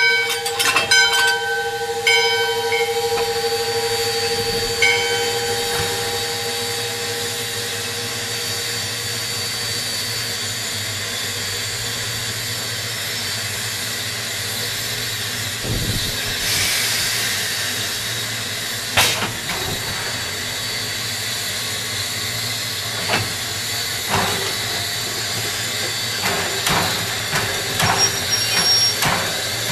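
Steam locomotive No. 40, a 2-6-2, standing with steam hissing steadily. A steady ringing tone fades away over the first several seconds, a louder rush of steam comes about halfway through, and a series of metallic clanks sound near the end.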